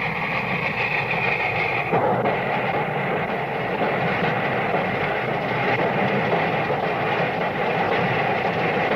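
Union Pacific Big Boy steam locomotive running. A high, steady multi-note tone from its whistle cuts off about two seconds in, leaving the dense, even running noise of the locomotive and train.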